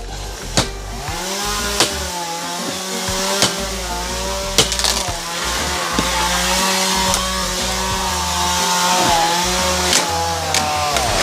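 Chainsaw coming up to speed about a second in and running steadily, its pitch wavering as it cuts through fallen tree wood, with a few sharp knocks along the way.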